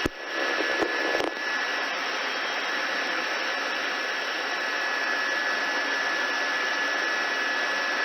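Steady rushing noise of a police helicopter's engine and rotors heard through the crew's radio and intercom feed, with a thin steady high whine over it and a couple of clicks in the first second or so as the channel is keyed.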